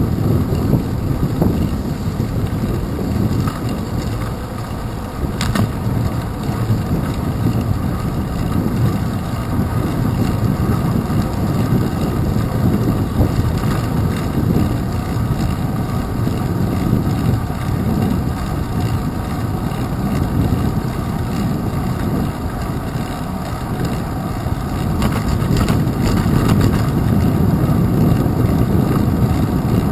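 Steady low rumble of wind buffeting and road vibration picked up by a GoPro Hero 2 mounted on a bicycle's handlebars as the bike rolls along a paved path, with a few brief clicks and rattles about five seconds in and again near the end.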